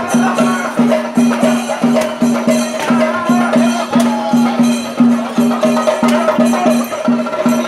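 Festival procession music: a drum beating a steady rhythm of about three strokes a second, with a wavering melody line above it.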